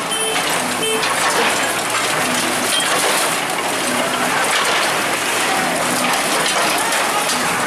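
Demolition debris breaking and falling as a bulldozer wrecks a building: a steady crackling clatter of crushed masonry and tiles.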